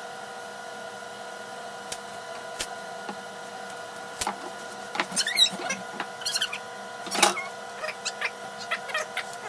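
Scattered knocks and clicks of wood and tools being handled in a workshop, over a steady hum. There is a short squeak about five seconds in and a louder knock about seven seconds in.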